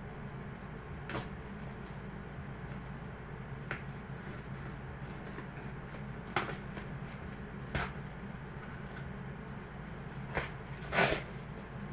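Packing tape and cardboard being peeled and torn open on a taped shipping box: scattered short crackles and rips, the loudest a brief tearing sound near the end. A steady low hum runs underneath.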